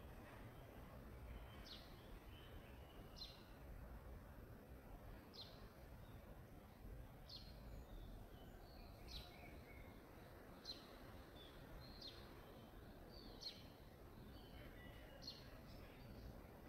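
A bird repeating short, sharp chirps about every one and a half to two seconds, faint over a low steady background rumble.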